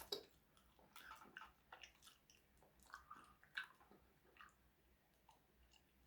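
A person chewing a sticky Coke-flavoured candy, faint wet smacks and small clicks at irregular intervals.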